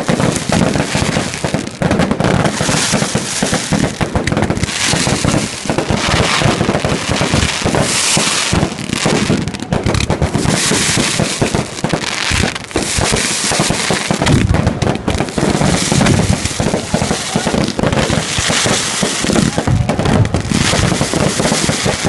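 Fireworks going off without a break: a dense, loud string of bangs and crackling, with bigger surges every second or two.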